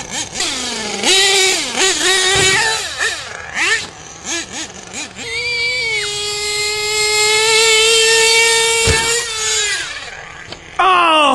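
Nitro RC monster truck's small two-stroke glow engine revving up and down in quick blips, then held flat out at a high, steady whine for about four seconds, dropping away and then revving sharply again near the end.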